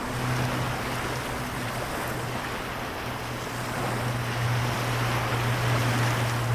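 Sea waves washing in a steady hiss of surf that swells a little about four seconds in, over a continuous low hum.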